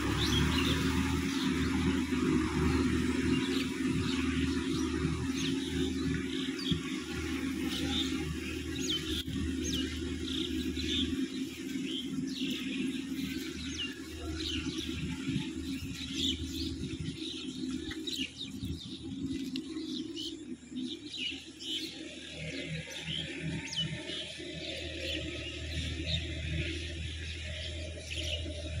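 Sonalika DI 50 tractor's diesel engine running steadily under load as it pulls a tiller through a muddy field. The engine grows fainter as the tractor draws away, then a little louder again near the end, while birds chirp many times in short high notes.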